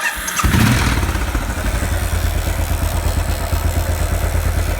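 Royal Enfield motorcycle engine starting up, catching within about half a second, then idling steadily. The running engine carries a weird noise that the owner hears after a rebuild but cannot place to the left or right side of the engine.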